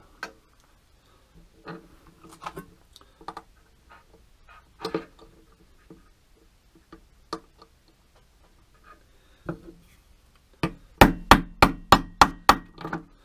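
Small hammer tapping a metal socket to drive a new 4 × 11 × 4 mm ball bearing into a quadcopter motor: about ten quick, sharp taps in two seconds near the end. Before that, faint scattered clicks as the bearing and socket are set in place.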